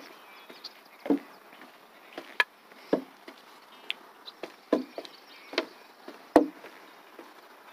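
Footsteps on a wooden boardwalk: a steady walking rhythm of wooden knocks, under one a second, with lighter, sharper taps in between.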